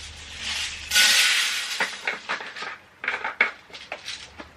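Laundry scent beads poured from their container into a washing machine drum: a brief loud rattling pour about a second in, followed by scattered light clicks and taps.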